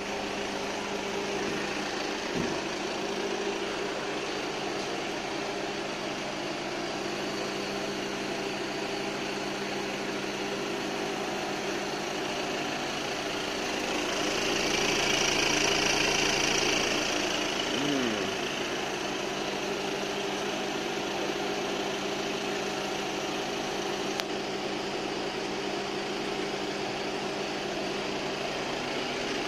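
Engine idling steadily. About halfway through, a hiss grows louder for a few seconds, then settles back.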